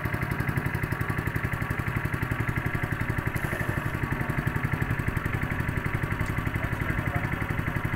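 Honda GX200 single-cylinder four-stroke petrol engine running steadily on a longtail outboard shaft, pushing the boat along, with an even throb.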